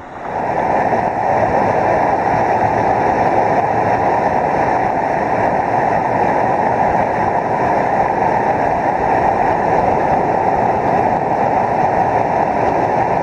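Steady rush of falling water from a waterfall close by, an even noise with no break.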